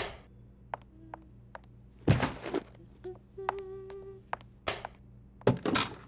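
Cartoon sound effects: several dull thumps and a few light clicks over a low steady hum, with a short squeak about halfway through.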